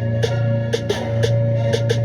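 Instrumental hip-hop beat playing without vocals: a steady, deep bass note under regular drum and hi-hat hits.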